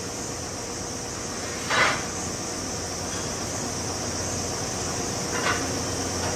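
Steady hum and high hiss of factory machinery at a steel-processing machine, with two short hisses, a louder one about two seconds in and a fainter one near the end, as the machine's cylinder moves.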